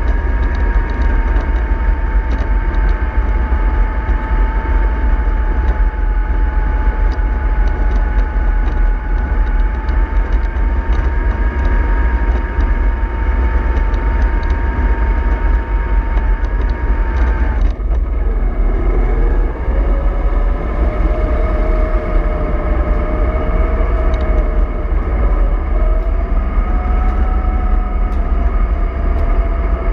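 MAN 24.310 bus under way, its diesel engine and driveline giving a steady low rumble with a whine on top. About 18 seconds in the whine drops sharply at a gear change, then rises again as the bus pulls in the new gear.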